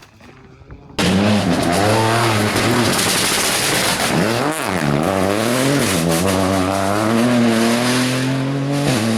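Rally car engine at high revs, cutting in suddenly about a second in: the pitch drops sharply and swings back up about halfway through as the driver lifts and changes gear, then climbs again under acceleration and holds, with heavy tyre and wind noise.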